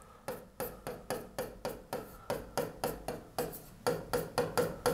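A quick, even series of light sharp taps or clicks, about four a second.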